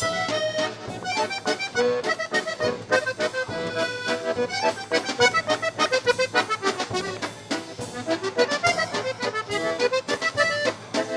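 Background music: a lively accordion tune over a steady beat.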